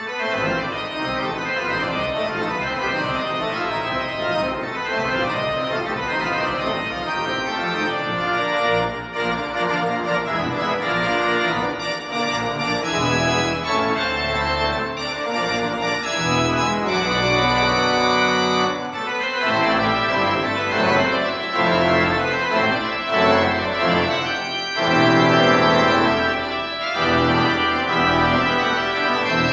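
Pipe organ played in a free improvisation: sustained chords of many notes, with deep pedal bass notes coming in about halfway through and the sound growing fuller and loudest near the end.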